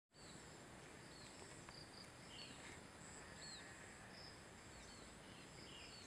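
Faint outdoor ambience: insects holding a steady high-pitched drone, with short bird chirps every second or so.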